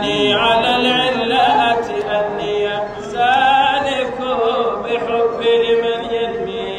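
A young man's solo voice chanting an Arabic devotional song in praise of the Prophet Muhammad (madih), without accompaniment. He holds long notes and ornaments them with gliding turns, breaking off briefly about three seconds in.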